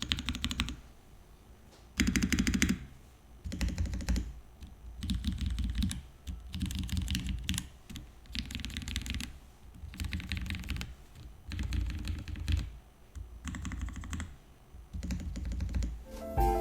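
Typing on a Voice 65 gasket-mount 65% mechanical keyboard fitted with Cap switches and doubleshot ABS keycaps: runs of rapid key clacks, about a second each, separated by short pauses.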